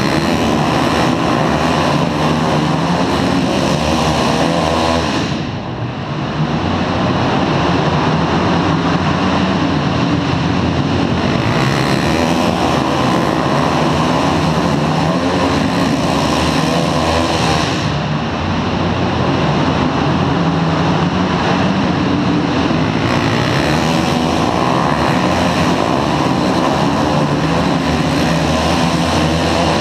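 A pack of flat track racing motorcycles racing laps around a dirt oval, many engines running loud at once. The engine noise dips briefly twice, about five seconds in and again near eighteen seconds.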